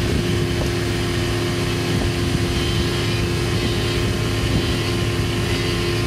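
Motorboat engine running at a steady pitch while the boat is under way, with wind rushing past.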